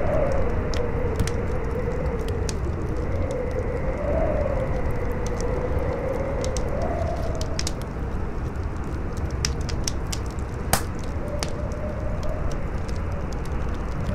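Campfire crackling with scattered sharp pops, the loudest about ten and a half seconds in, over a howling wind: a low rumble and a moaning tone that wavers up and down, drops away about halfway through and comes back faintly near the end.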